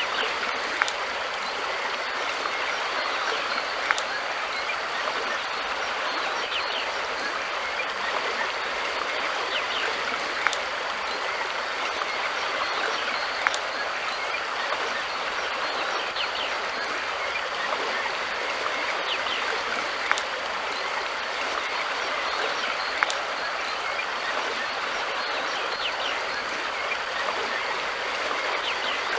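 River water flowing steadily, an even rushing noise, with a sharp click every few seconds.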